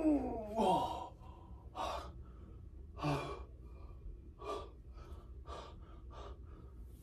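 A man's strained groan, falling in pitch, trails off just under a second in, followed by a string of short, hard breaths that come quicker toward the end: the effort of squatting with a dumbbell held at the chest.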